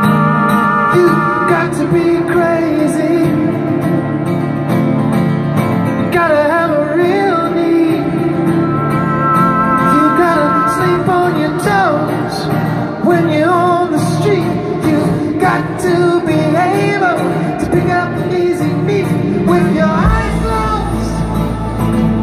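Live rock band heard from the audience: strummed acoustic guitar under a lead vocal that bends and wavers in pitch. A deep bass comes in near the end.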